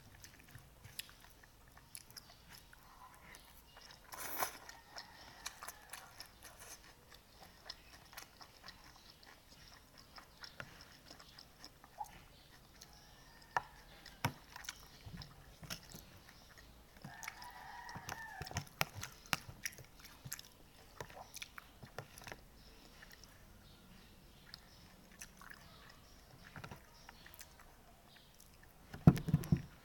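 Close-up eating sounds of a person chewing pansit batil patong noodles, with many short clicks from utensils against the bowl. A rooster crows in the background just past the halfway point, and a louder low thud comes near the end.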